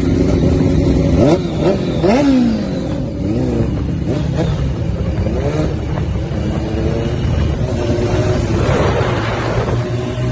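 Honda CBR600RR's inline-four engine revved in several quick throttle blips in the first couple of seconds, then running at lower revs with smaller rises and falls. A rush of noise comes briefly near the end before it settles to a steady note.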